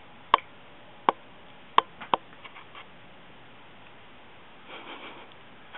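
A few sharp clicks or taps, four of them in the first two seconds or so, then fainter ticks and a brief soft rustle near the end.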